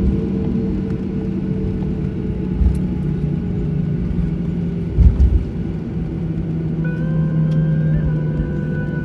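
Jet airliner cabin during taxi: the engines run at a steady low hum with rumble. A low thump about a third of the way in and a louder cluster of thumps a little past halfway come from the wheels rolling over bumps in the taxiway.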